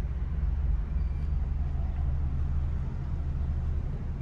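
Steady low rumble of a car's engine and tyres heard from inside the cabin as the car creeps forward at low speed.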